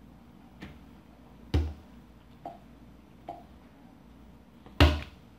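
A ball of homemade blue slime thrown or slapped down onto a wooden table: five short thuds, the loudest about a second and a half in and again near the end, with fainter taps between.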